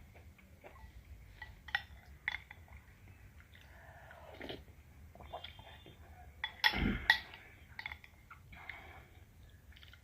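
Close-up eating sounds from a bowl of soupy noodles: wet chewing, small mouth clicks and slurps, with the loudest, fullest slurp about seven seconds in.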